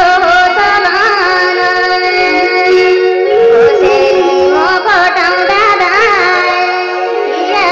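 Nepali folk song recording: an ornamented, wavering melody line over sustained accompaniment.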